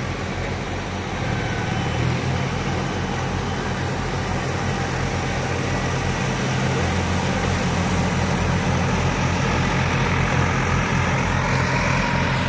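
Diesel farm tractors running together in a steady low engine drone as they work through mud; the drone grows slightly louder in the second half.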